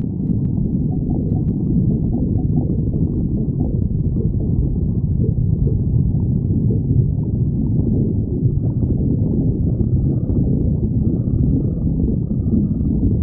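A person's empty stomach growling from hunger: a continuous, deep low rumble.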